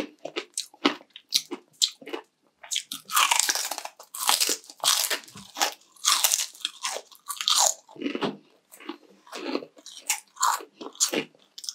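Close-up biting and chewing of crispy fried pork, with many sharp, irregular crunches, at their densest and loudest in the middle.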